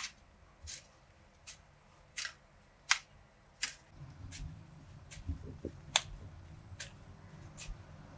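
A steady series of short, sharp clicks, about one every three quarters of a second, with a low rumble coming in about four seconds in.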